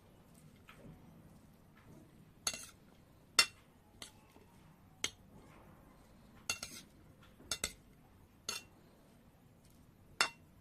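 A spoon clinking against a bowl as a salad is mixed, with sharp, irregular clinks about once a second.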